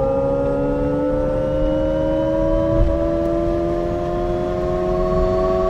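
Alpine A290 GTS electric hatchback accelerating: a whine of several tones that rises slowly and steadily in pitch, over a low road rumble.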